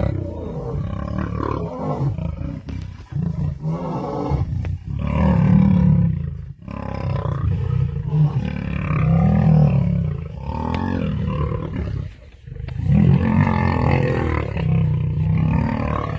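Male lions fighting: deep snarling and growling roars that surge loudly every few seconds as three males maul a fourth.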